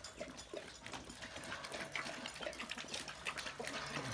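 Dogs lapping bone broth from a bowl: quick, rhythmic wet laps.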